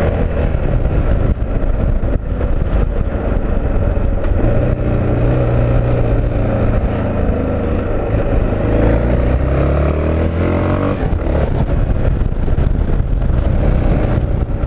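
A vehicle's engine running under way as it drives off, its pitch climbing as it accelerates through the middle and easing off about eleven seconds in, over a steady low drone of engine and road noise.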